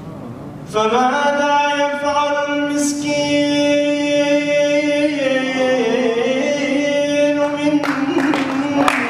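A man singing an Iraqi mawwal unaccompanied into a microphone: after a short pause he holds one long note that dips in pitch midway. Audience applause breaks in near the end while the note still sounds.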